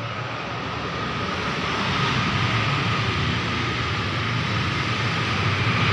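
Steady mechanical rumble with a faint high whine, growing gradually louder.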